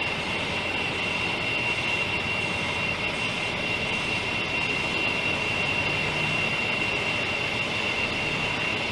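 Steady running noise of an articulated lorry's diesel engine as the heavy goods vehicle moves slowly, with a constant high-pitched whine over it and no impacts.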